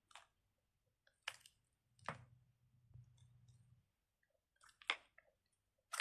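Faint, scattered clicks and light handling noise from a squishy Nee-Doh fidget toy being squeezed in the hands, about five sharp clicks across a few seconds.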